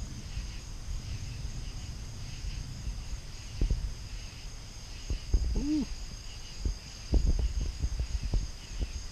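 Night insects chirring steadily at a high pitch, over low rumbling and a few soft knocks. A brief low pitched sound comes a little past halfway.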